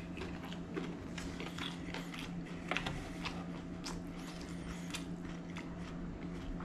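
A person chewing food close to the microphone: irregular small wet clicks and crunches, with a steady low hum underneath.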